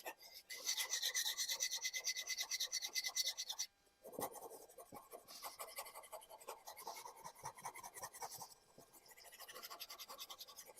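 A Japanese kitchen knife's steel blade scraping back and forth on a dry sharpening stone in quick, even strokes, several a second. The strokes are loudest for the first few seconds, stop briefly, then carry on more softly with another short pause near the end.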